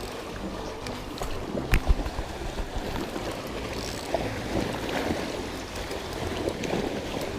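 Wind rumbling on the microphone over the steady wash of sea water, with two sharp thumps close together a little under two seconds in.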